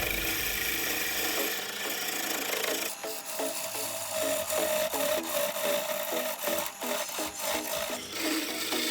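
A sharpened woodturning gouge cutting into wood on a lathe, a scraping cut. From about three seconds in it pulses in regular strokes, about three a second.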